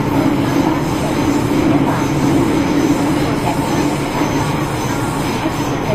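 MTR M-train electric multiple unit heard from inside the carriage while running: a steady rumble of wheels and running gear with a constant hum.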